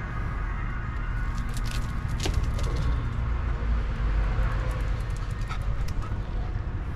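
A small terrier moving about on concrete, with a few sharp clicks, over a steady low rumble.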